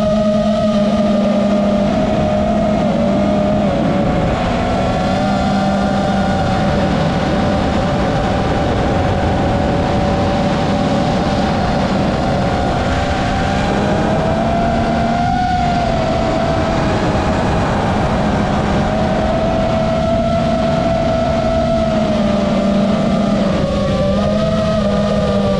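FPV racing quadcopter's motors and propellers whining, the pitch drifting up and down with the throttle over a steady lower hum.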